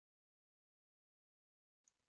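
Silence: the audio track is digitally muted, with a faint trace of microphone noise returning at the very end.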